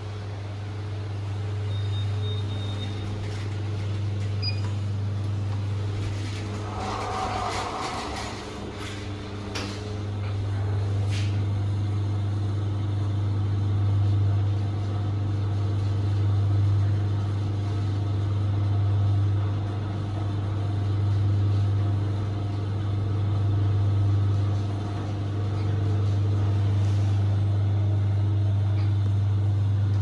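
LG Di1 MR lift heard from inside the car: a steady low hum with a fainter higher tone above it, swelling and easing gently every couple of seconds as the car travels. A few clicks and a short rush of sound come about seven to ten seconds in.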